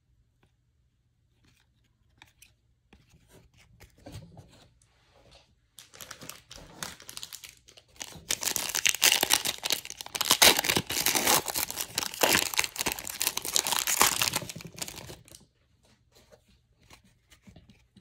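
A foil trading-card pack wrapper being torn open and crinkled: a few small crackles at first, then several seconds of loud, dense crinkling that dies away before the end.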